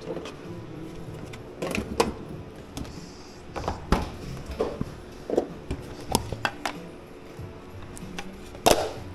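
Scattered knocks and clinks of kitchen utensils and dishes, about a dozen at uneven intervals, the loudest near the end, over quiet background music.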